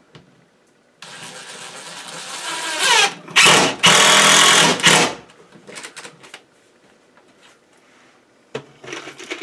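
Cordless drill driving a screw into a wooden wall to fasten a PVC conduit strap. The motor spins up about a second in, rising in pitch, pauses briefly, then runs on at its loudest before stopping about five seconds in. A short knock comes near the end.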